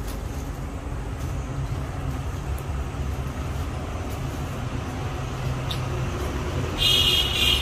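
Steady low rumble of background noise, with a brief shrill sound of several high tones near the end.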